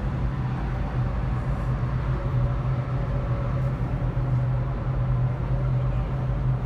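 Ship's engine running with a steady low hum.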